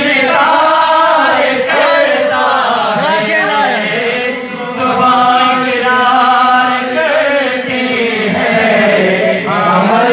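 A man singing an unaccompanied Urdu manqabat, a devotional song in praise of Imam Ali, in a chant-like style with long held notes that waver in pitch, sung into a microphone.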